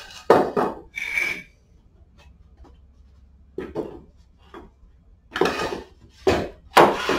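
Wooden blocks knocking and clattering against a concrete floor and a steel motorcycle jack as they are set in place under the bike: about half a dozen separate knocks with short pauses between.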